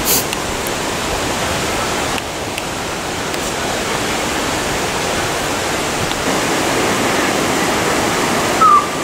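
Steady, even rush of fast-flowing mountain creek water. A short high squeak comes near the end.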